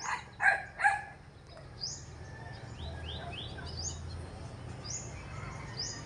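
Birds calling, a black-naped oriole among them: a few quick harsh notes in the first second, then scattered short, thin high chirps.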